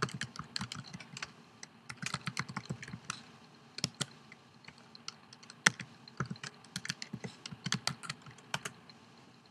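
Typing on a computer keyboard: irregular runs of key clicks with short pauses between them as a login email and password are entered, the clicks stopping shortly before the end.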